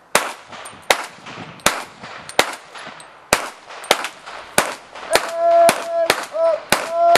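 Two shooters firing handguns in a timed series: about a dozen sharp shots, at first roughly one every three-quarters of a second, coming faster toward the end. About five seconds in, a steady held tone starts up and keeps sounding under the last shots.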